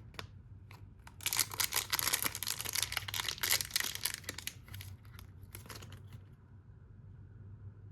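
Titanium keycaps being handled: a dense run of small hard clicks and crinkling for about three seconds, thinning to a few scattered clicks.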